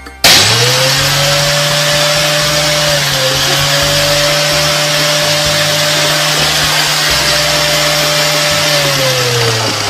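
An electric motor starting suddenly and spinning up, then running steadily with a loud rushing hiss over a low hum, and beginning to wind down in pitch near the end.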